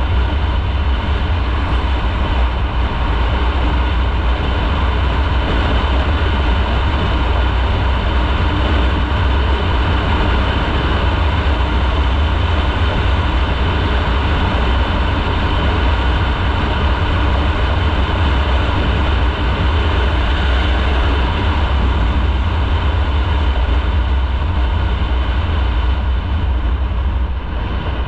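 Motorcycle riding at a steady speed: engine and road noise under a heavy, constant wind rumble on the microphone.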